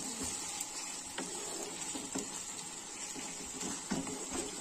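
Thick Bengali rohu fish curry with potatoes simmering in a wok: a steady sizzle with a faint small pop about once a second as the gravy bubbles.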